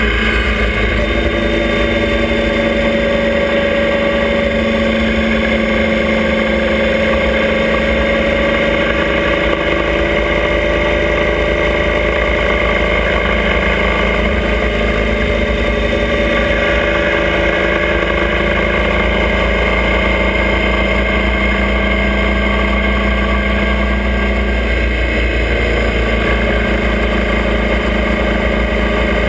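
Motorcycle engine of a sidecar outfit running steadily at road speed, its pitch drifting slowly up and down, with a constant low wind rumble on the microphone.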